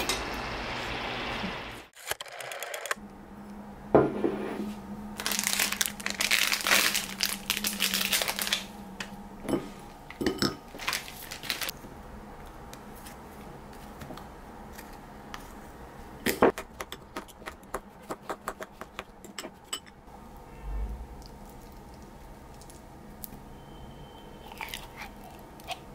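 Crinkling and tearing rustle, then a fork in a ceramic bowl scraping and breaking up a frozen milk ice-cream bar, heard as a quick run of small clicks and scrapes.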